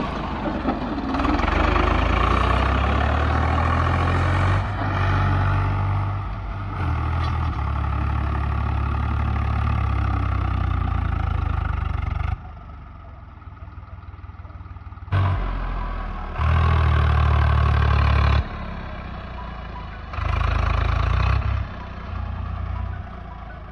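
Swaraj tractor's diesel engine running hard as the tractor is driven over sandy slopes: loud and steady for about the first half, then suddenly quieter, with several loud surges of a second or two each in the second half.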